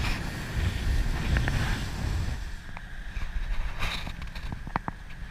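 A rigid inflatable boat running fast over the sea, with wind buffeting the microphone over the rush of water and the outboard. The rumble eases about two and a half seconds in, and a few light knocks follow near the end.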